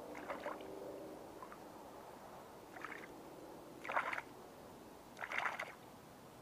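Kayak paddle strokes: the blade dipping and pulling through the water, each stroke a short splash and trickle. Four strokes, the last two the loudest.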